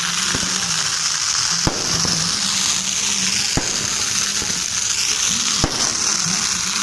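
Firecrackers going off in a dense, steady crackle, with four sharper bangs spread through it.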